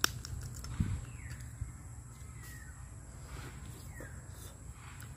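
A sharp crack as cooked food is broken apart by hand, then a thud and soft handling and eating sounds. A bird gives a few short falling calls in the background.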